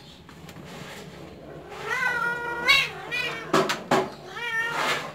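Persian kitten meowing three times, starting about two seconds in: a long meow, a short one, then another near the end. There are two sharp taps between the second and third meows.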